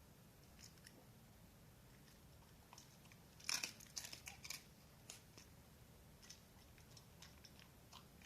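A dachshund chewing food, a cluster of crisp crunches about three and a half seconds in, with a few faint scattered clicks and otherwise near quiet.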